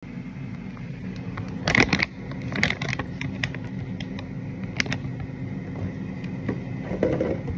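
Knocks, scrapes and rustles as a phone is handled and propped up on a kitchen counter, the sharpest a few knocks about two seconds in, over a steady low hum.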